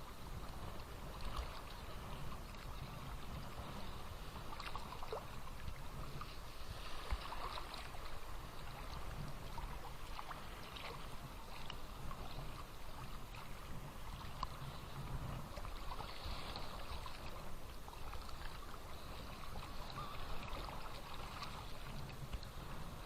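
Small Black Sea waves splashing and lapping at the shore, a steady wash that swells every few seconds.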